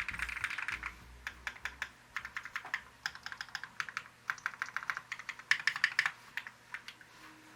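Fast typing on an Ori CLS 2//65 mechanical keyboard with BSUN X switches on an aluminium plate and GMK Lux keycaps. The key strokes come in quick runs with short pauses and stop shortly before the end.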